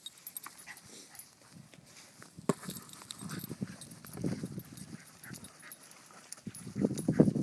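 A small dog nosing a basketball across grass: scuffling paw steps on the lawn and knocks of the ball, loudest near the end.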